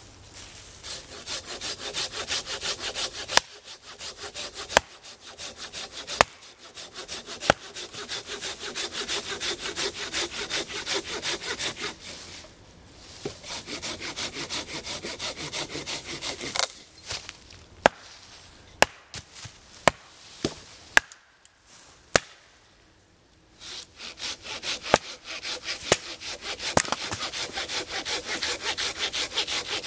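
Hand saw cutting dry deadwood for firewood in long runs of fast back-and-forth strokes, broken by short pauses, with several sharp knocks in the middle.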